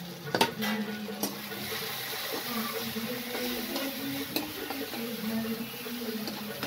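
Onion and spice masala frying in oil in a metal kadhai, with a steady sizzle, while a metal spatula stirs it and knocks against the pan a few times, the sharpest knock about half a second in.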